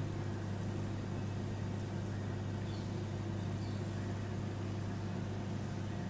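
Microwave oven running with a steady low hum, roasting papads and vadiyalu (fryums) on its turntable.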